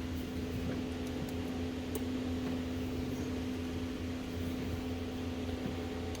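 A steady machine hum with a constant low tone, and a few faint clicks over it.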